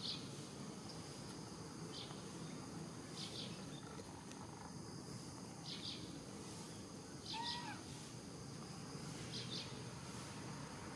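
Baby macaques squeaking: short, high double squeaks every second or two, and one lower, mewing squeal about seven and a half seconds in, over a faint steady hum.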